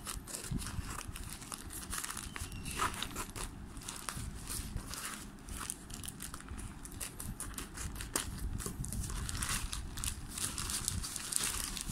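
A thin plastic courier mailer crinkling and rustling as it is cut open with scissors and then pulled apart by hand, with irregular sharp crackles; the rustling grows louder near the end as the bag is opened out.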